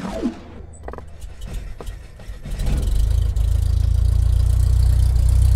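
Logo sound effect: a falling whoosh, then a low steady rumble that builds about two and a half seconds in and holds at full loudness.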